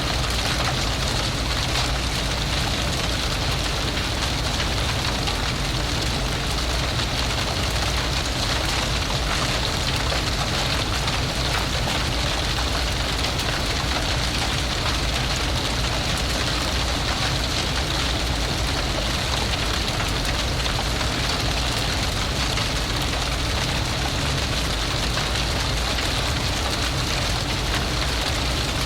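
A large fire blazing: a steady rush of flames with dense, fine crackling over a low rumble, at an even level.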